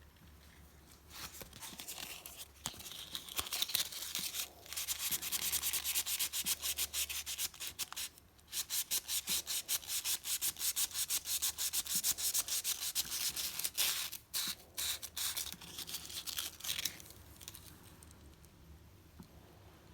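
Hand abrading of a rusty steel screwdriver bit: quick back-and-forth rubbing strokes, several a second. It starts about a second in, pauses briefly twice and stops a few seconds before the end.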